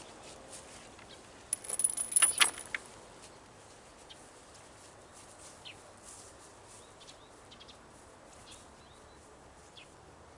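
A brief loud jingling, clinking rattle about one and a half to three seconds in, then faint scattered bird chirps over quiet outdoor background noise.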